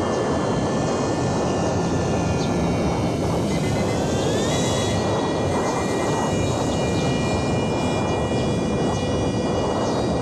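Electric motor and propeller of a small radio-controlled foam glider whining steadily. The whine steps up in pitch about four seconds in as the throttle is opened, over a steady rushing noise.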